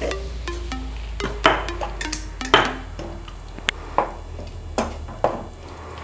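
A cooking spoon stirring a thick mashed vegetable mixture in a metal kadai, with several sharp clinks and scrapes against the pan at irregular intervals.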